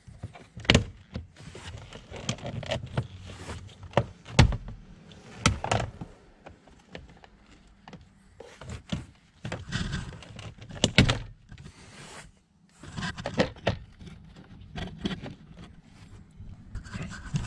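Plastic lower dash trim panel of a Ford Focus being pulled off by hand. Its push-in retaining clips pop out with several sharp snaps and knocks, and the panel scrapes and rattles as it is worked loose.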